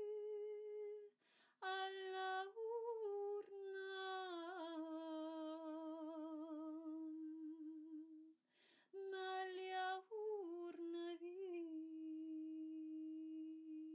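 A woman's voice chanting light-language tones: long, held, wordless notes that waver slightly and step gradually lower in pitch. It breaks off briefly twice, about a second in and past the middle.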